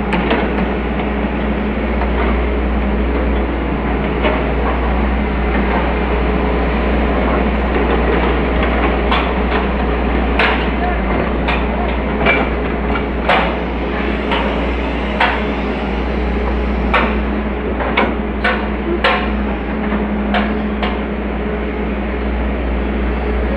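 Hitachi excavator running with a steady low engine hum, and a series of sharp, irregular knocks, mostly through the middle and latter part.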